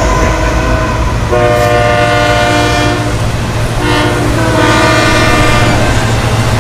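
Diesel freight locomotive air horn blowing a chord: a long blast starting about a second in, a short one about four seconds in, then another long one, over the steady low rumble of the locomotive engines.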